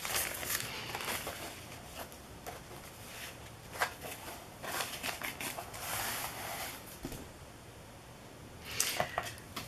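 Thin paper napkin rustling and crinkling as it is unfolded and smoothed flat by hand, in a few soft bursts.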